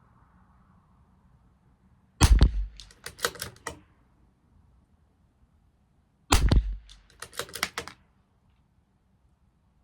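Two shots from a CZ 457 LRP bolt-action .22 rimfire rifle firing SK Standard Plus ammunition, about four seconds apart, each followed by a quick run of clicks as the bolt is worked to eject the case and chamber the next round.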